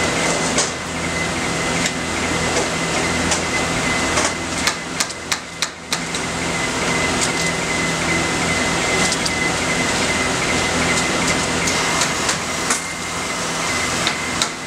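Sharp metallic knocks and clicks from solar panels and rails being handled and slid into a metal frame, several in quick succession about five seconds in and again near the end. Under them runs a steady machine hum with a constant high whine.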